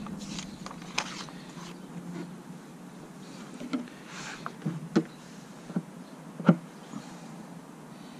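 Scattered light clicks and knocks from handling a small plastic paddle fin and setting it against the fin box on a board's deck, the sharpest about six and a half seconds in.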